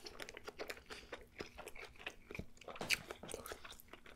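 Close-miked chewing of a grilled pita sandwich: a run of small crunches and wet mouth clicks, with one louder crunch a little before three seconds in.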